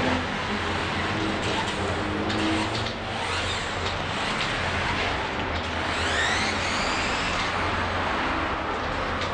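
Steady background road-traffic noise, with a faint whir from the homemade RC car's small gearmotors during the first few seconds.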